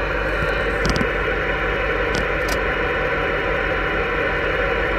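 Steady static hiss from a 2 m amateur radio's speaker, its squelch held open by radio-frequency interference from the truck's LED headlights, with the truck's engine idling underneath.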